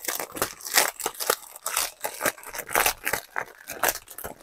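Clear plastic packaging crinkling and crackling in irregular bursts as hands squeeze and slide along a plastic sleeve holding the small bags of diamond-painting drills.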